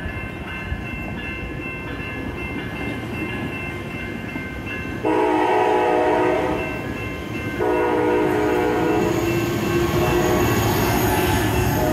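A Coaster commuter train rumbles through a railroad crossing while the crossing's electronic bells ding in a rapid, steady rhythm. About five seconds in, a train horn sounds a short blast, then after about a second a long one that runs on.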